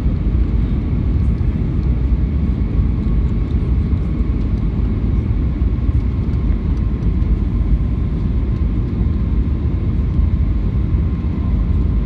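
Airbus A319 cabin noise on the landing approach, heard from a window seat: a steady low rumble of the jet engines and airflow, with a faint steady whine above it.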